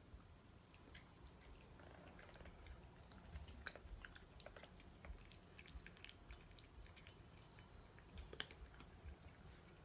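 A cat eating dry kibble from a ceramic bowl: faint crunching and small clicks of food against the bowl, scattered irregularly, strongest twice, a little before the middle and near the end.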